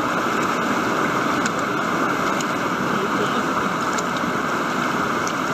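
Whitewater rushing steadily over a river ledge and churning through a standing surf wave, a continuous even rush with a few small splashes on top.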